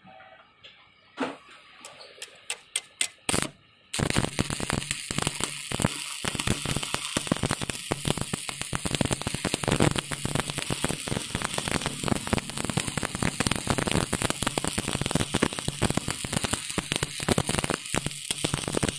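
Stick (shielded metal arc) welding on a steel shaft: a run of short sharp ticks as the electrode is struck, then about four seconds in the arc catches and crackles and sizzles steadily, with constant sharp pops, until it cuts off at the end.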